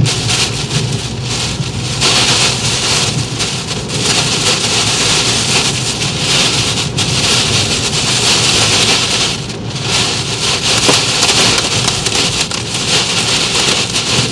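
Heavy wind-driven derecho rain beating on a car, a dense steady downpour that grows heavier about two seconds in and eases briefly near the middle.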